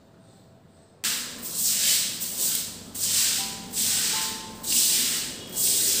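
Stiff stick broom scrubbing a wet tiled floor: a run of about seven loud, hissy swishing strokes, starting about a second in.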